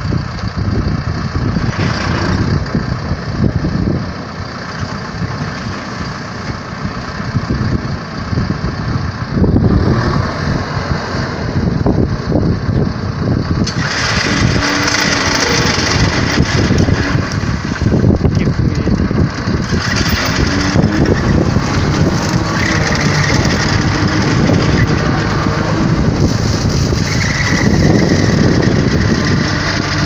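John Deere tractor engine running under load, driving a rear-mounted Vogel & Noot TST 300 mulcher whose rotor shreds brushy regrowth and soil after stump clearing. A steady mechanical noise that turns harsher and brighter from about halfway through.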